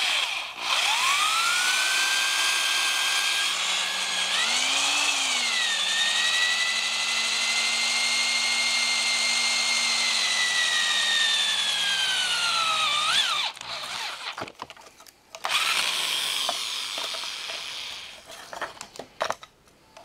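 Electric drill with a twist bit boring through a flat steel bar: the motor whine runs steadily for about twelve seconds, wavers briefly early on and drops in pitch just before it stops, then runs again for a few seconds.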